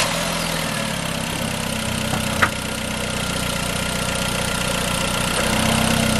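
Hyundai Genesis Coupe's 2.0-litre turbocharged four-cylinder idling steadily just after starting, running for the first time on a newly fitted K&N cold air intake. A single short click about two and a half seconds in.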